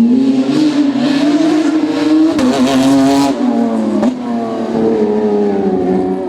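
Rally car engine running hard at high revs, its pitch holding with small rises and dips, with a short burst of rougher noise about halfway through.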